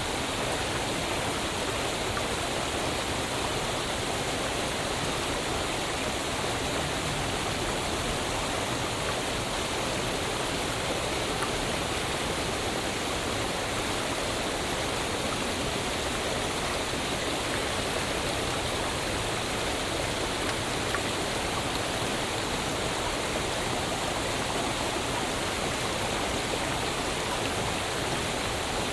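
Waterfall: water falling and rushing in a steady, even roar of white noise with no breaks.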